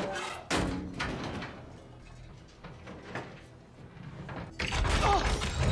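Film sound effects from the movie playing in the room: a sharp knock about half a second in, then quieter rustling, and from about four and a half seconds in loud mechanical clanking and whirring, with gliding whines, as the yellow Volkswagen Beetle begins transforming into the robot Bumblebee.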